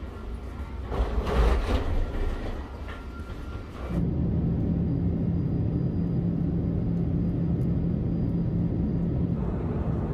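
Uneven low rumble with a few brief swells of noise on a jet bridge, then, suddenly about four seconds in, the steady cabin noise of an airliner in flight with a constant low hum.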